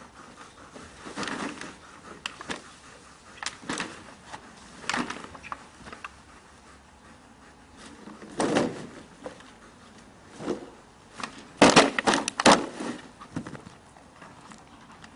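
Sacks being swung and thrown onto grass: irregular rustles and soft thumps, with the loudest moment a quick cluster of sharp knocks and scuffles about three-quarters of the way through.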